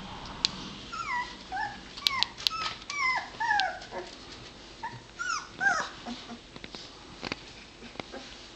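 Newborn puppies squeaking and whimpering while they nurse: a run of short, high squeals, each falling in pitch, over a few seconds, with a few sharp clicks among them.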